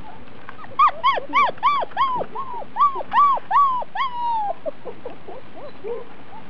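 A German shepherd puppy yelping: a fast run of about ten high yelps, each rising and then dropping, starting about a second in and trailing off into a few fainter whimpers.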